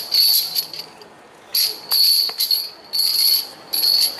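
Metallic jingling in short shaken bursts, about five of them, with a longer pause about a second in.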